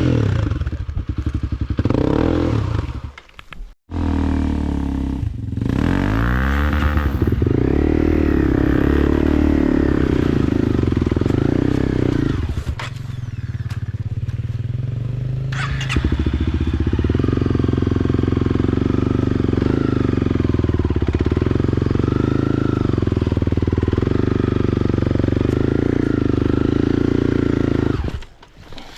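Motorcycle engine running at low revs, with a short rise in revs about six seconds in. The sound cuts out abruptly for a moment about four seconds in and drops away near the end.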